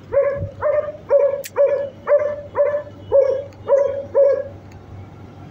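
A dog barking, nine barks in a steady run about two a second, which stops after about four and a half seconds.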